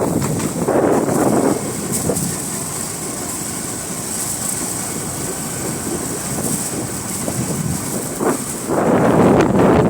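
Wind buffeting the microphone as a rumbling roar, gusting hardest about a second in and again near the end, with a calmer stretch between.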